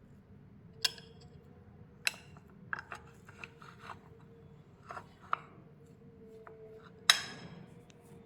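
A spoon clinking and scraping against a container of soaked poha: a dozen or so light, uneven clicks and knocks, the loudest near the end with a short ring, over a faint steady hum.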